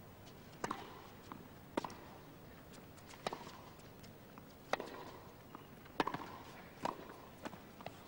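A tennis serve and baseline rally: six sharp racquet strikes on the ball, about one every 1.2 to 1.5 seconds, with softer ball bounces on the hard court in between.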